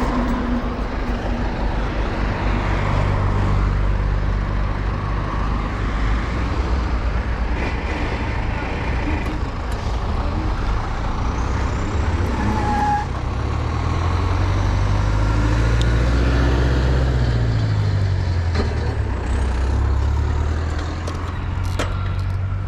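Road traffic: motor vehicles running over a steady low rumble. About halfway through, one engine's pitch rises and falls as it passes.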